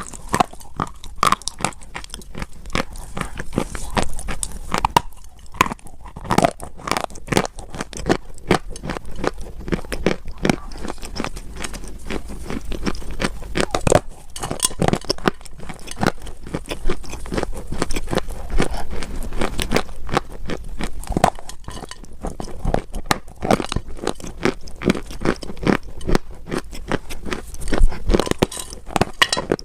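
Dry clay crunching and crumbling under the fingers, a dense, irregular stream of small crackles and crunches.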